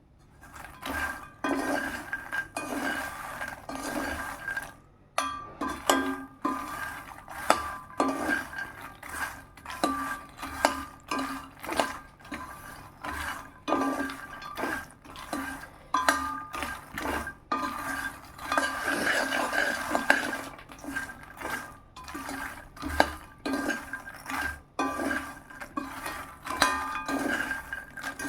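Metal spoon or spatula scraping and clinking against a metal pan in repeated stirring strokes, about one or two a second, as fox nuts (makhana) are tossed and turned. The pan rings faintly under the strokes.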